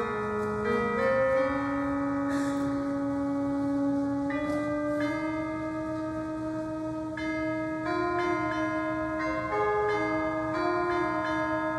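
Church organ playing the introduction to a hymn: held chords whose notes change every second or two under a slow melody.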